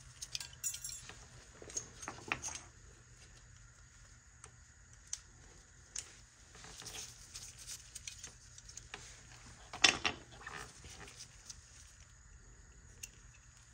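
Scattered light clicks, taps and short rustles of brake pads and their metal spring clips being handled, the loudest clack about ten seconds in.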